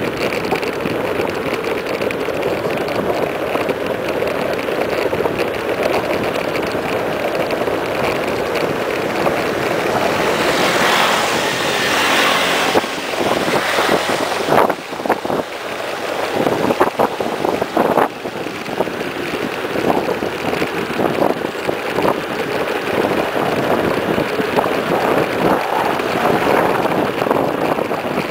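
Wind rushing over the microphone and tyre noise from a mountain bike descending fast on asphalt. A brighter hiss swells about ten to thirteen seconds in, as a motorcycle passes close by. After that, short knocks and rattles come through.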